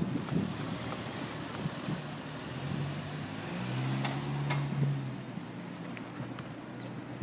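A low motor hum that swells and rises slightly in pitch in the middle, then fades, over the scattered clicks and grit noise of wheels rolling on rough pavement.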